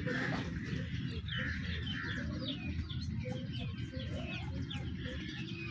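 Many small birds chirping and calling in quick, overlapping notes, over a steady low background rumble.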